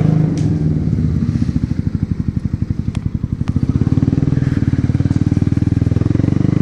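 Honda CBR125's single-cylinder four-stroke engine idling with an even, pulsing beat, with two sharp clicks about three seconds in.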